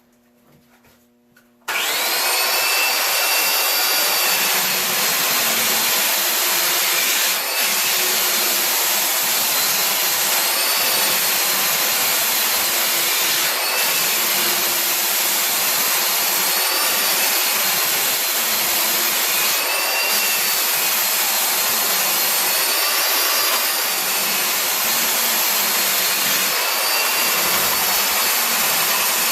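Electric belt sander starting up about two seconds in and running steadily as it sands the rail of a surfboard, with a faint whine above the noise that rises and falls as the load changes.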